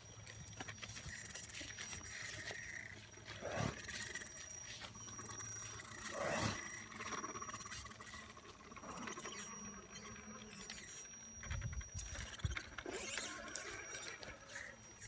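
A horse sniffing at a toy RC truck, blowing air through its nostrils, with two louder breaths about three and a half and six seconds in. A faint steady high whine runs underneath, and there are a few low thumps near the end.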